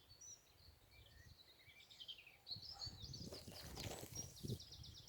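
Faint songbirds singing and chirping, with a fast run of evenly repeated high notes a little past the middle. A few soft low thumps are heard over the same stretch.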